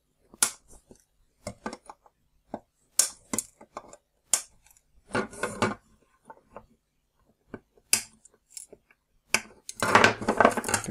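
Flush cutters snipping LED leads on a circuit board: a string of sharp metallic clicks. Two longer stretches of clattering as the board and tools are handled, the louder one near the end.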